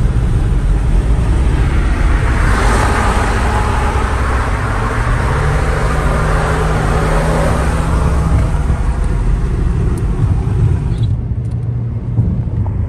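Steady tyre and road noise with a low engine drone inside a Kia car's cabin at freeway speed. The noise swells for several seconds in the middle as a pickup towing a trailer runs close alongside, and the hiss drops off suddenly near the end.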